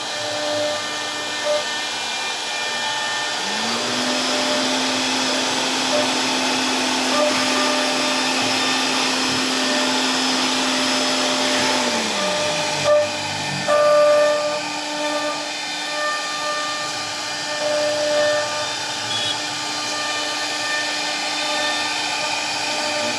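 CNC wood router running: a steady whine over a hissing drone. A second motor spins up a few seconds in, holds a steady pitch, and winds down near the middle, followed by two brief louder knocks.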